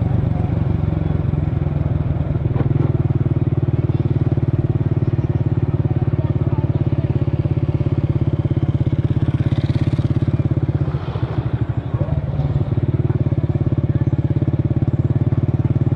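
Scooter engine idling steadily with a fast, even firing pulse, briefly dipping a little about eleven seconds in.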